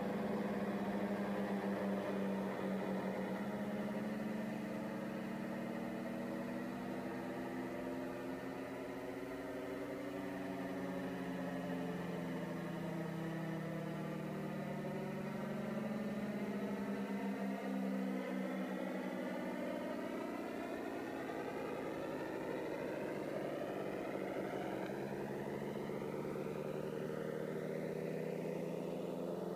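Synthesised imitation of a World War 2 Hawker Hurricane's aircraft engine, made on the iVCS3 synthesiser app: a steady low engine-like drone whose pitch wavers slightly, with its overtones slowly sweeping up and down.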